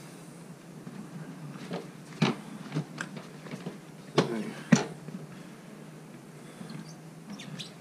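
A few short clicks and knocks from a motocross boot working the newly fitted gear lever of a Triumph Explorer XCA, the sharpest two about half a second apart near the middle.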